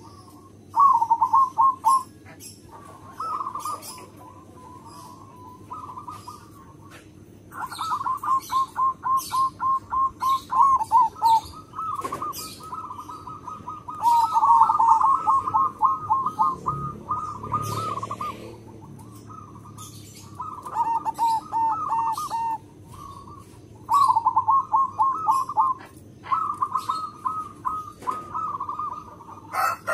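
Zebra dove (perkutut) singing its rapid, stuttering coo in repeated bouts of a few seconds each, with short pauses between bouts. Other small birds chirp faintly in the background.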